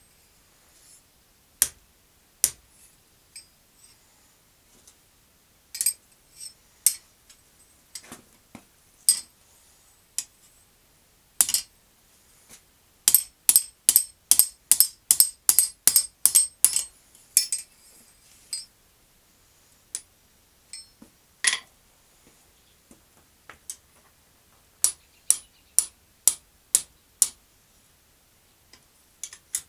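Blacksmith's hand hammer striking red-hot steel on an anvil. The blows are spaced out at first, then come in a quick run of about three a second midway, then turn sparse again with a short burst near the end.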